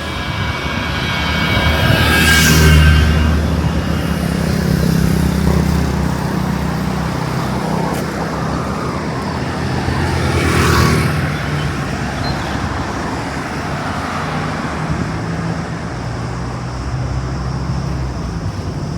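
Road traffic: one vehicle passes about three seconds in and another about eleven seconds in, over a steady low engine hum.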